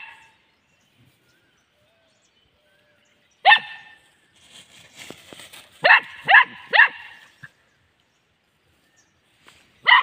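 Small dog barking in play with short, sharp barks that drop in pitch: one about a third of the way in, a quick run of three a couple of seconds later, and one more at the very end.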